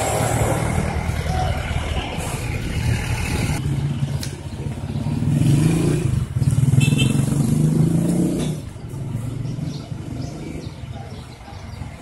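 A motor vehicle's engine running close by, getting louder about four seconds in and dropping away around eight and a half seconds.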